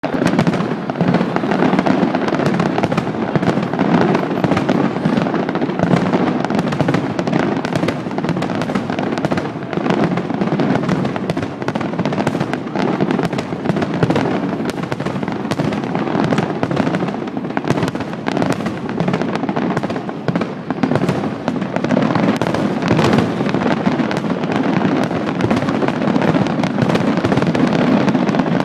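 Fireworks finale barrage: a dense, continuous volley of bangs and crackles with no let-up.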